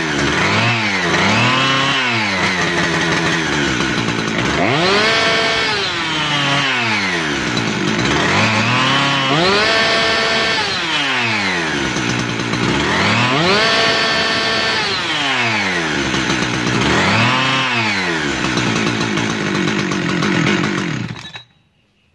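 Husqvarna 372XP two-stroke chainsaw engine revving up to high speed and falling back, over and over, several times held at the top for a second or two, then stopping abruptly near the end. The throttle is worked by hand at the carburetor lever because the throttle return spring is broken, so the throttle does not return to idle on its own.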